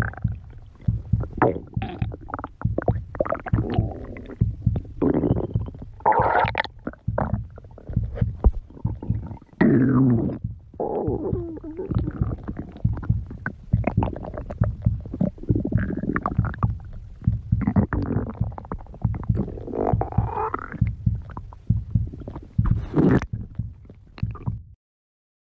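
Stomach growling: an unbroken run of irregular gurgles and rumbles, with squeaky tones sliding up and down, cutting off shortly before the end.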